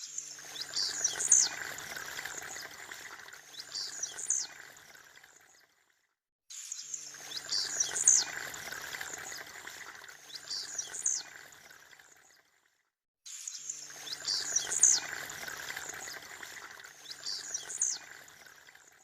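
Blue-black grassquit (tiziu) giving its short, rising call, twice in each stretch, over a steady sound of running water. The same stretch of about six seconds plays three times, each time cutting off into a brief silence.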